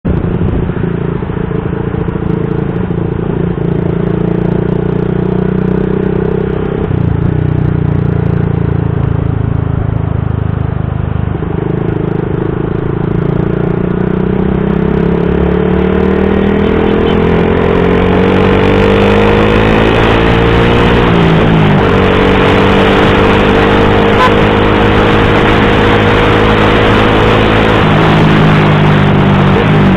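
Motorcycle running through an Akrapovic GP M1 aftermarket exhaust, a bassy note that climbs slowly in pitch as it pulls, with short breaks in the note about a third of the way in and again about two thirds in, as at gear changes. Wind noise on the microphone builds over the second half.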